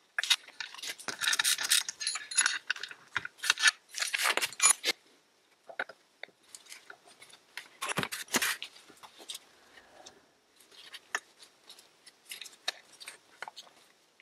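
Metal clinking, rattling and scraping as a gearbox shift housing and its steel shaft are handled on a wooden bench. The clatter is dense for the first few seconds, comes in a louder burst about eight seconds in, then thins to scattered clicks.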